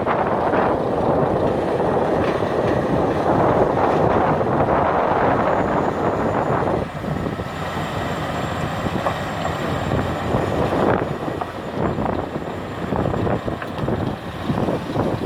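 Hitachi 470 excavator working under load while loading a dump truck: its engine and hydraulics run loudly with a dense rushing noise for the first seven seconds or so. The noise then drops a little and gives way to uneven knocks and clatter.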